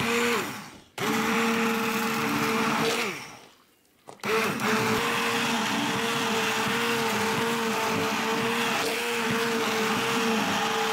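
Handheld immersion blender whirring as it purees cooked cauliflower in broth into a smooth soup. It runs in two short bursts that each wind down with a falling pitch, then runs steadily through the rest.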